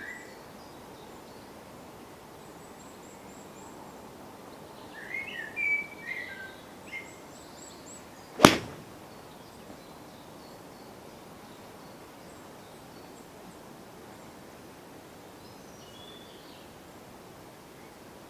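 A golf iron strikes a ball once, a single sharp crack about eight and a half seconds in, over a steady background hiss. Birds chirp a few times before the shot and once again later.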